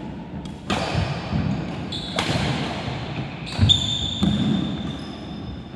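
Badminton doubles rally: several sharp racket strikes on the shuttlecock, with players' shoes thudding and squeaking high-pitched on the wooden court floor, the squeaks mostly in the second half.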